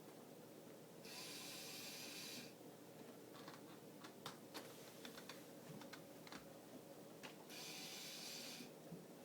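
Faint, irregular clicks and ticks from the K'nex phonograph mechanism being handled and run, with two stretches of hiss about a second long each, one about a second in and one near the end.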